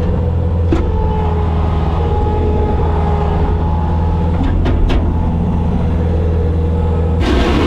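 Bobcat skid steer's diesel engine running steadily, with a few sharp knocks, and a louder, harsher noise coming in near the end.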